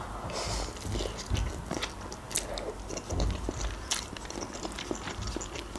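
Close-miked mouth sounds of someone eating instant noodles: chewing and slurping with many small wet clicks.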